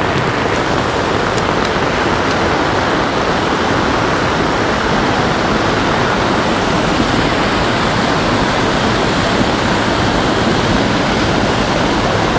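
Floodwater rushing down a ravine in a torrent, a steady loud rush of water.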